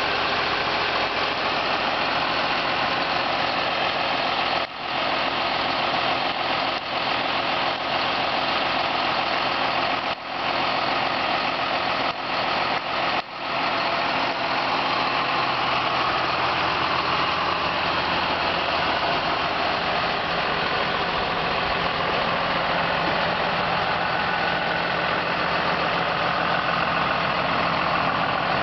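John Deere 6620 tractor's six-cylinder diesel engine running steadily at idle, with a deep, full sound ("dik geluid"). The sound dips briefly a few times, about 5, 10 and 13 seconds in.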